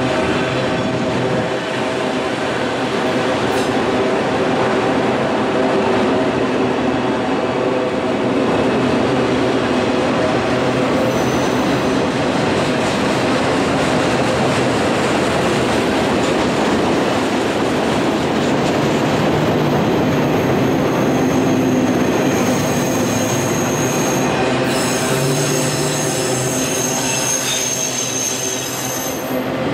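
Freight train of autorack cars rolling past close by: a steady rumble and rattle of wheels on rail. A high-pitched wheel squeal comes in briefly about midway and more steadily over the last few seconds.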